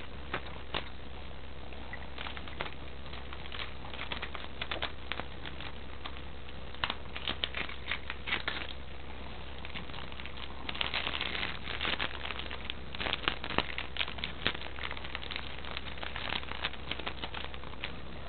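A cat chewing plastic: irregular crinkly crackles and clicks of teeth on plastic, coming thicker about seven seconds in and busiest from about eleven to fifteen seconds. A steady low hum runs underneath.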